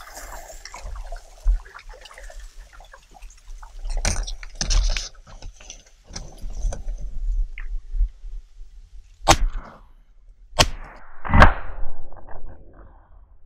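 Rustling and splashing through reeds and water, then three sharp cracks about a second apart from a TOZ-34 over-and-under double-barrelled shotgun fired at ducks. The last crack is the loudest and rings on for a second or two.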